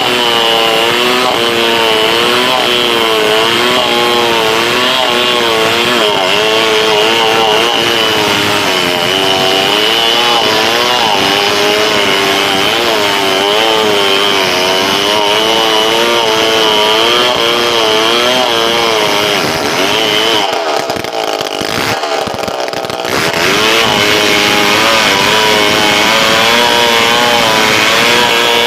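Stihl 070 chainsaw, a large two-stroke saw, running hard while cutting through wood, its engine note wavering up and down under load. About three-quarters of the way through it eases off for a couple of seconds, then picks up again.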